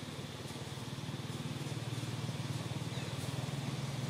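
A small engine running steadily: a low, even hum that grows a little louder.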